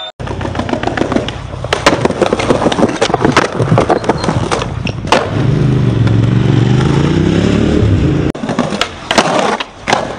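Skateboard wheels rolling hard over rough concrete, with sharp clacks of the board popping and landing, the loudest of them about two, three and five seconds in and again near the end. In the middle a low, wavering rumble runs under the rolling for about three seconds.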